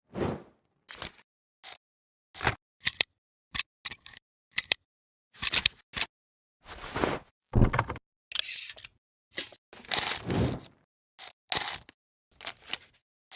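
A string of short film-transition sound effects, each cut off into silence: sharp camera-like clicks and brief crackling, rushing noise bursts. The longest and loudest bursts come about halfway through and again about three-quarters of the way through.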